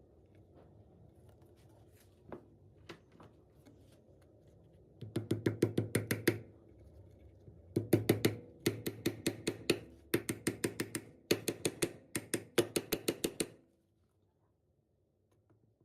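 Rapid knocking, about eight strikes a second, in six runs beginning about five seconds in, stopping abruptly near the end; a faint steady hum underlies the first part.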